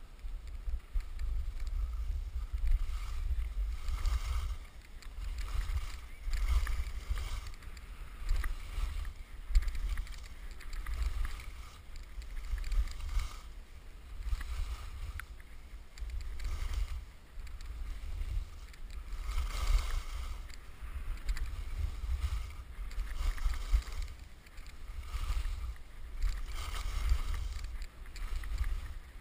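Skis sliding and scraping over packed snow through a series of turns, a swoosh that swells and fades every two seconds or so, over a heavy rumble of wind buffeting the camera's microphone.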